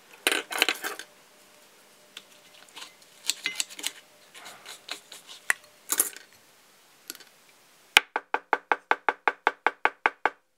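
Deer hair being handled and prepared, with scattered rustles and small clicks, then a hair stacker tapped on the bench: about seventeen quick, even knocks at roughly seven a second, each with a short ring, evening up the hair tips for the fly's tail.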